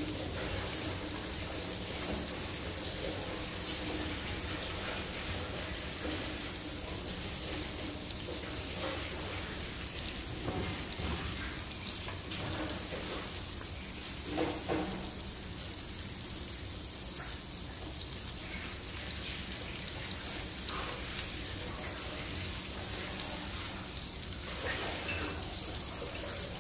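Breaded fish deep-frying in hot oil in a wok, a steady sizzle with fine crackling.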